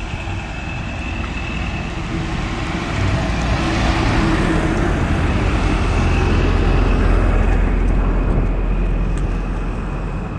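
A motor vehicle passing on the road, its engine and road noise building to a peak after about six seconds and then fading.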